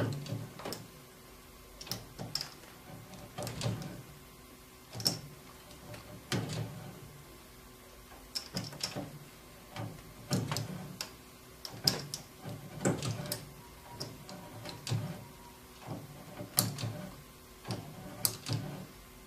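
Machinery clunking: irregular sharp knocks, each with a low thud, coming about once a second.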